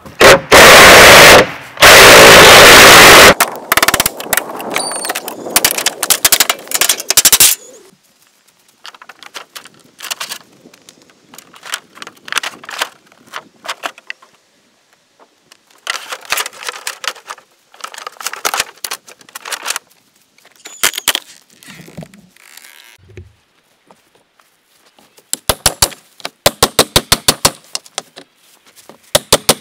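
Cordless reciprocating saw cutting into a pop-up camper's roof. It is very loud for about three seconds, then runs in rapid strokes for a few more seconds. After that come scattered cracks and clatter of panels being torn apart, and near the end a quick run of sharp, evenly spaced knocks.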